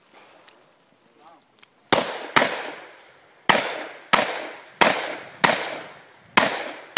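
AR-15 rifle firing a string of seven shots, starting about two seconds in at roughly one shot every half to two-thirds of a second, each sharp crack trailing off in an echo.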